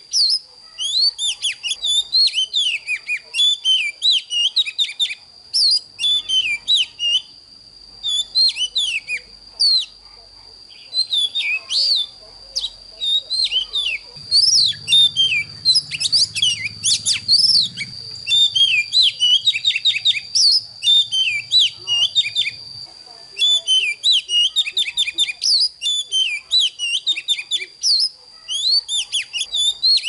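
Oriental magpie-robin singing: fast runs of varied whistled notes and sharp down-slurred chirps in bursts separated by short pauses, over a thin steady high tone.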